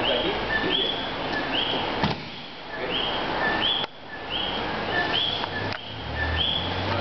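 A high chirp, rising and falling, repeating steadily about every two-thirds of a second, with a sharp knock about two seconds in.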